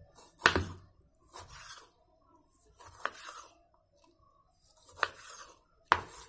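Kitchen knife cutting tomatoes into large pieces on a wooden cutting board: four sharp knocks of the blade striking the board, the loudest about half a second in, with softer rasping of the blade drawing through the tomato skin and flesh between them.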